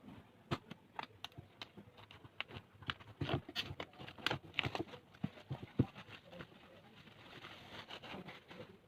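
Hands handling the packaging and contents of a DVD boxset: a run of light clicks, taps and rustles, busiest in the middle, with a softer rustle near the end.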